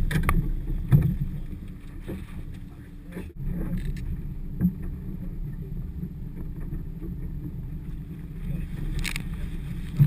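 Steady low rumble of wind and water around a small fishing boat, with scattered sharp knocks and clicks from handling on deck and a short sharper clatter near the end.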